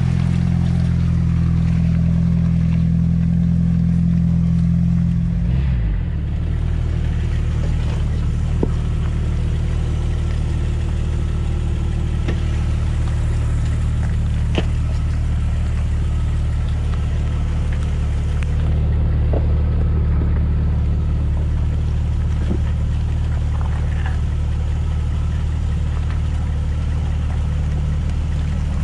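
Jeep Wrangler TJ engine running steadily at low trail speed, with a few short knocks here and there. The engine note drops and changes about six seconds in.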